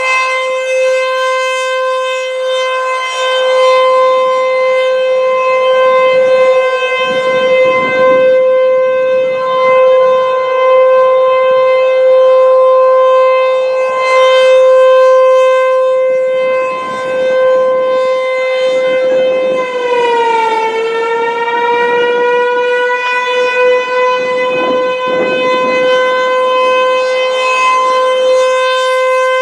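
ASC T-128 civil defense siren sounding a loud steady tone with many overtones, its loudness dimming and swelling every few seconds as the rotating horn sweeps past. About two-thirds of the way through, the pitch sags briefly and then climbs slowly back to the steady tone.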